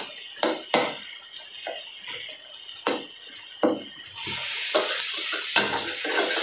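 A cooking utensil knocking and scraping against a kawali (frying pan) while tomatoes are stirred and mashed in it: sharp clacks at uneven intervals. About four seconds in, a loud steady hiss comes in and stays.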